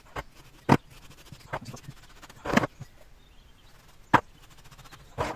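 A metal tube knocking on a wooden workbench as it cuts pouring holes in packed casting sand and is tapped to empty its sand plug. There are sharp single knocks about half a second in and about four seconds in, and a brief rasp near the middle.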